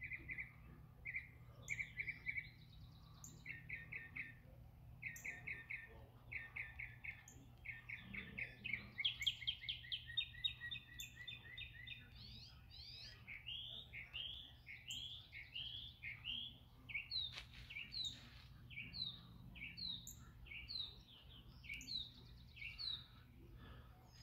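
Northern cardinal singing. It gives phrases of quick repeated whistled notes, then a fast trill about a third of the way in, then a long series of downslurred whistles.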